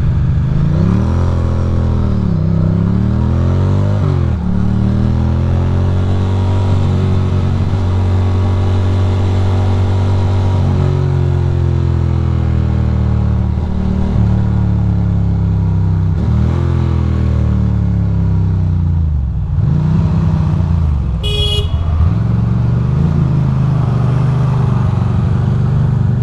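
Ducati Monster's V-twin engine running, its pitch falling and rising several times as the bike slows and picks up speed in traffic. A brief high horn toot sounds about three-quarters of the way through.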